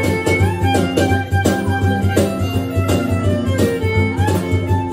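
Live acoustic trio playing an instrumental passage: violin carries the melody over strummed acoustic guitar, with a steady low beat from a cajon.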